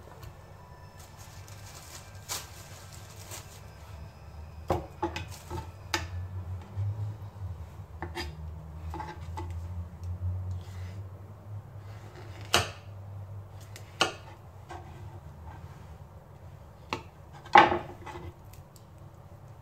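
Knife and fingers working needlefish on a wooden cutting board: scattered sharp taps and knocks of the knife on the board, the loudest near the end, with a rustling stretch a second or two in, over a low steady hum.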